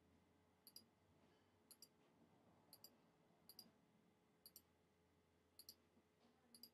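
Faint key clicks of an iPhone on-screen keyboard as a name is typed letter by letter: seven taps about a second apart, each a quick, high double tick.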